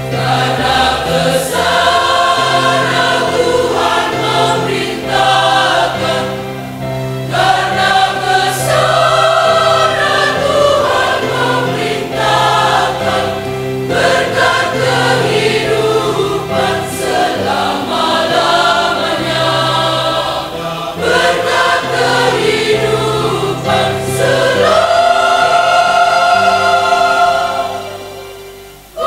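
Women's choir singing an Indonesian Christian hymn in several parts, ending the phrase on a long held chord that fades out near the end.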